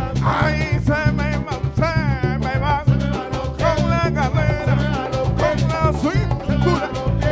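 Afro-Peruvian song: a man singing over a steady beat of cajón and hand drums.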